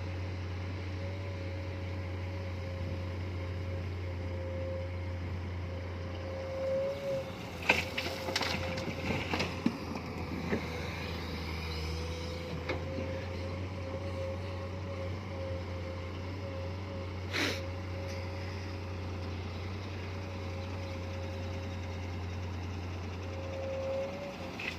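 Komatsu PC210 excavator's diesel engine running steadily under a constant whine, with a burst of knocks and clatter about eight seconds in and one sharp knock about seventeen seconds in.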